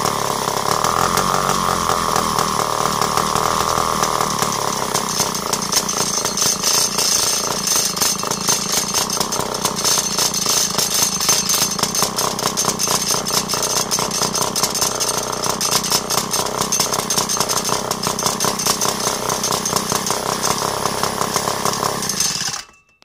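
Vintage Montgomery Ward WD-76 two-stroke chainsaw engine running steadily and loud, its carburettor, by the owner's account, in need of adjustment for cold weather. The sound cuts off abruptly near the end.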